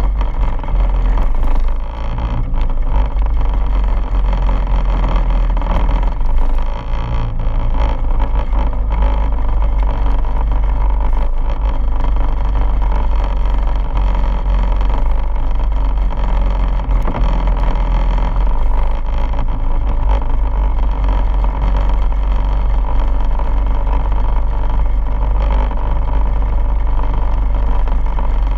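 Quad bike engine running steadily as the bike rides along a dirt track, heard close up from the bike's front, under a heavy low rumble.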